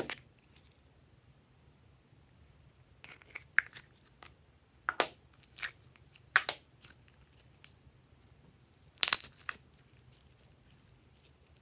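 Glossy slime being peeled and pulled out of a plastic egg container: a sharp snap at the very start, then bunches of short sticky crackling pops and squelches from about three seconds in, the loudest about nine seconds in.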